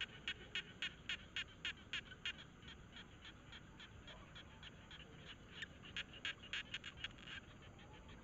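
An animal calling in a rapid series of short, sharp notes, about four a second, in two bouts: one at the start and another about five and a half seconds in.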